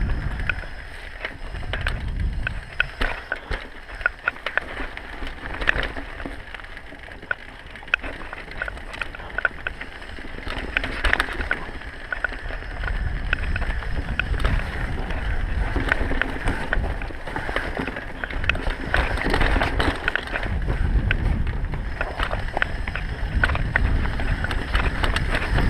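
Mountain bike riding fast down a dirt trail: a constant clatter of sharp rattles and knocks from the bike over bumps, over tyre noise on dirt and wind buffeting the microphone, which swells to a low rumble as speed builds in the second half.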